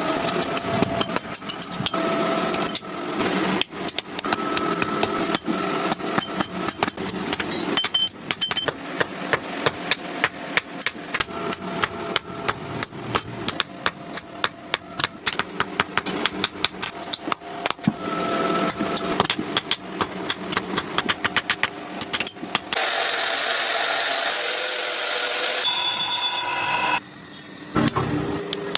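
Repeated sharp hammer blows on metal, a few a second, over a steady machine hum. Near the end a hissing noise comes in for a few seconds.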